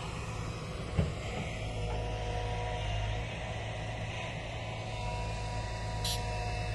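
Tipper truck's diesel engine running steadily with a low hum, and a sharp click about a second in.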